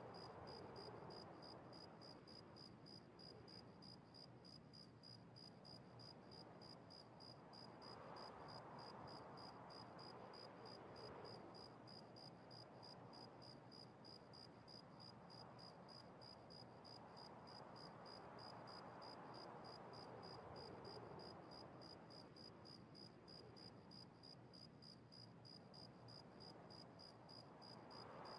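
Near silence: faint bedroom room tone with a quiet, high-pitched tone pulsing quickly and evenly throughout, and a soft hiss that swells and fades about every ten seconds.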